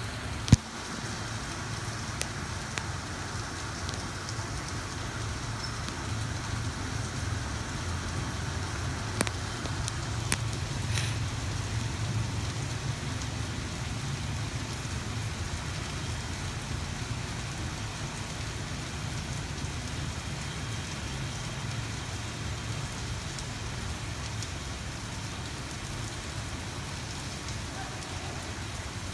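Steady rain falling, an even hiss, over a low steady rumble. A few sharp knocks stand out, the loudest about half a second in.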